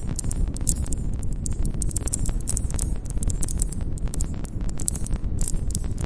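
Campfire of burning wood crackling and popping, many irregular sharp snaps over a steady low rumble of the flames.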